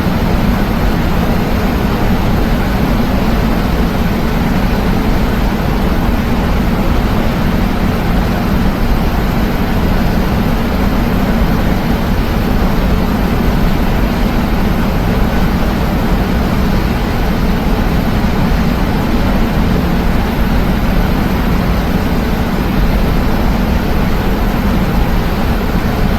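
Steady cabin roar inside a Boeing 737-900 airliner in flight, from its CFM56 turbofan engines and the airflow over the fuselage, even and unbroken with a deep hum underneath.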